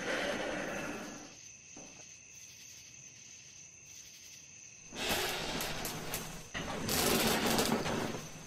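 A person getting up from a desk chair and moving about: a short burst of rustling at the start, then two longer bursts of rustling and movement noise from about five seconds in. A faint steady high whine runs underneath.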